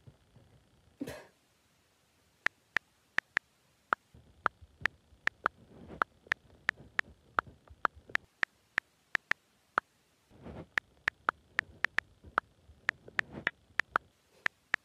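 iPhone on-screen keyboard clicks, one sharp click for each key tapped, in an uneven run of about three a second starting about two and a half seconds in, with a brief pause near ten seconds. A short soft noise about a second in, before the typing starts.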